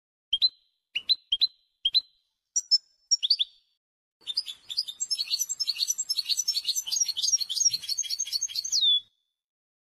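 European goldfinch song of the Maghrebi 'wdaniya' style, as on a cage-bird training recording. A handful of short, separate rising notes comes first, then after a brief pause a fast, continuous twittering phrase of about five seconds that ends on one falling note.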